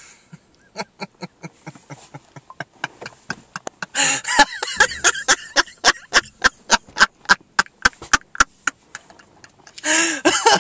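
A man laughing in short rhythmic bursts, about three a second, quiet at first and turning loud and open-mouthed about four seconds in, with a longer, louder burst of laughter near the end.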